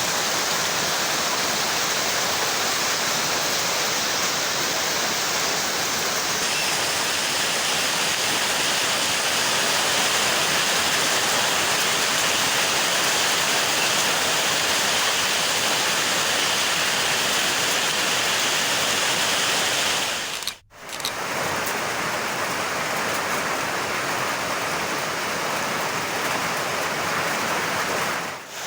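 Heavy rain falling in a steady, even hiss. About two-thirds of the way through it cuts out for an instant and resumes with a slightly different texture, where two recordings are joined; it dips briefly again at the very end.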